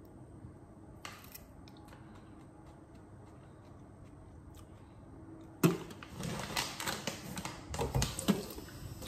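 Faint crunching clicks of a raw sweet potato stick being bitten and chewed. About five and a half seconds in comes a sudden loud knock, followed by irregular rustling and clicks.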